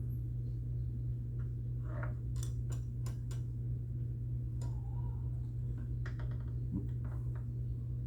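Scattered light clicks and ticks of hands working fishing line and a small plastic key into place while tying it off, over a steady low hum. The clicks cluster in the first half.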